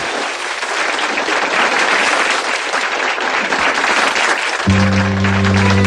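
Applause, a dense patter of many clapping hands. About three-quarters of the way through, the song's instrumental backing track comes in under it with held low chords.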